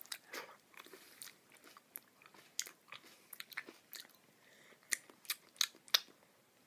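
Close-up chewing of grapes: irregular wet mouth clicks and crunches, coming faster in the second half.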